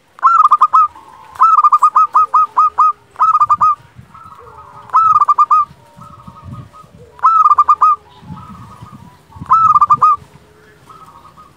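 Zebra dove (perkutut) singing its flute-like song: six bursts of quick, clipped notes, several a second, each note dipping in pitch. Fainter calls carry on between the bursts.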